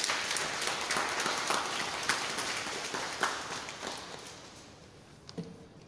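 Audience applauding, a dense patter of clapping that thins and dies away over the last two seconds.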